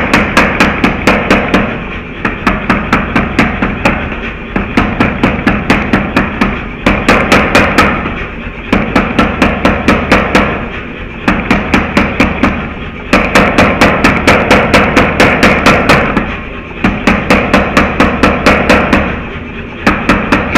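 Power hammer striking hot steel in rapid runs of about five blows a second, each run about two seconds long with short pauses between, over the steady hum of the machine running.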